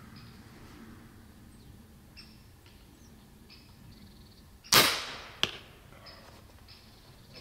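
Low-powered (7.5 joule) airgun firing an arrow from its launch tube: one sharp shot with a short hissing tail about five seconds in. A sharp click follows about 0.7 s later as the arrow strikes the target.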